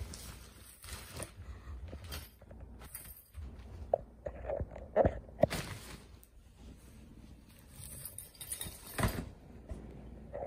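Kitten scrambling through a collapsible nylon cat tunnel: the fabric rustles and crinkles and the tunnel scrapes and knocks, with the busiest scuffling about four to five seconds in and another burst near nine seconds.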